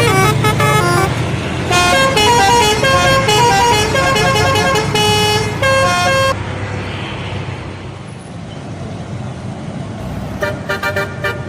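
Indonesian bus telolet horn playing a quick tune of stepped notes for about six seconds, then a stretch of engine and road noise. The horn starts up again near the end.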